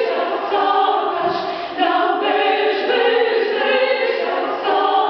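Mixed chamber choir of men's and women's voices singing a Bulgarian folk song in parts.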